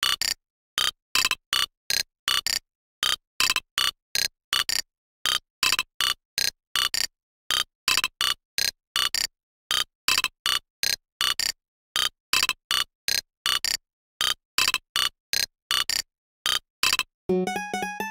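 Digital alarm clock beeping: quick clusters of short electronic beeps, repeating about once a second. Near the end it cuts off and a different melodic alarm tone begins.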